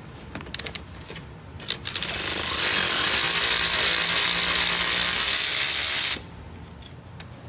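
Power ratchet loosening a seized front brake caliper mounting bolt: a few ratchet clicks, then about four seconds of loud, steady rattling that stops abruptly.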